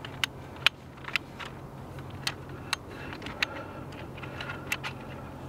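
Sharp, irregular clicks and light clatter from the Peak Design Travel Tripod's telescoping leg sections being pulled out with their cam-lever locks open, over a faint steady low hum.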